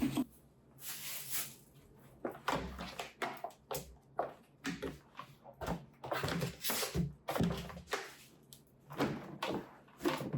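Toothbrush scrubbing against teeth: a run of short, uneven brushing strokes.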